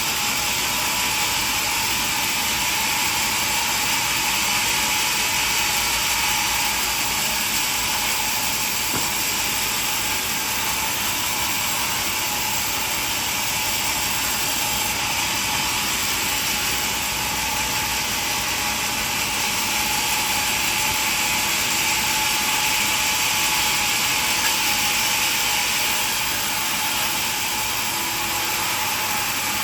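Sawmill machinery running steadily, a constant dense mechanical noise that does not let up.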